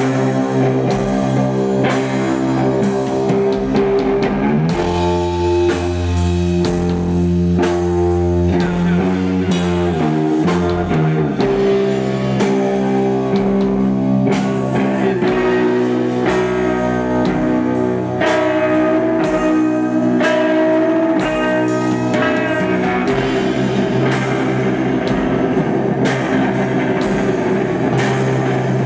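Noise-rock band playing live and loud: electric guitar and bass guitar holding heavy chords over a drum kit, with a downward run of notes about ten seconds in.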